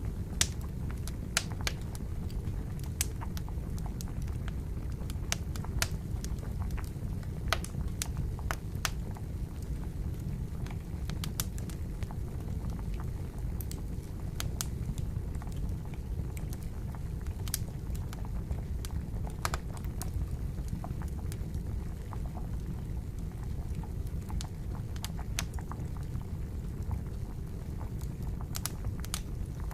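Wood campfire crackling, with irregular sharp pops and snaps, over the steady low bubbling of water at a rolling boil.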